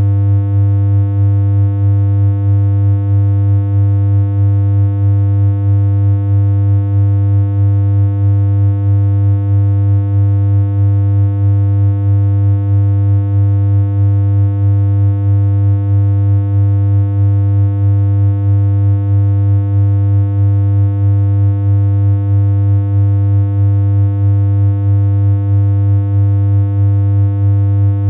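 Synthesized electronic hum: one steady low tone with a buzzy series of overtones, held unchanging, with a slight regular pulse in loudness.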